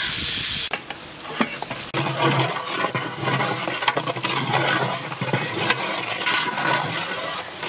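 Rice grains pouring into a basin of water with a rushing hiss that cuts off within the first second. Then sliced onions frying in a large pot of oil, sizzling and crackling, with a metal paddle scraping and knocking against the pot.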